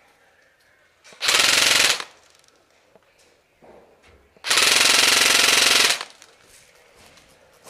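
KWA SR5 airsoft rifle firing two full-auto bursts: a short one about a second in and a longer one of about a second and a half past the middle.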